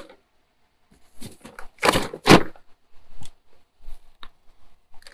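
Cardboard boxes being handled and shifted by hand, with dry scraping and rustling in a few short bursts, the loudest two about two seconds in.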